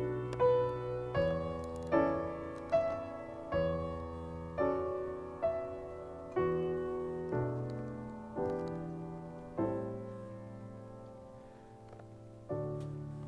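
Background piano music: slow single notes and chords struck about once a second and left to ring out, with a longer pause before a new low chord near the end.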